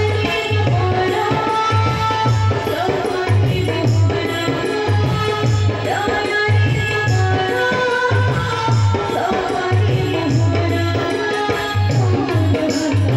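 A woman singing into a microphone over a loud, amplified music backing, with drums keeping a steady beat.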